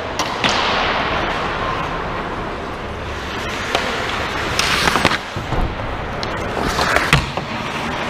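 Ice hockey play close by: skate blades scraping the ice, with sharp clacks of sticks and puck. A louder hiss of skates cutting the ice about five seconds in and again near seven.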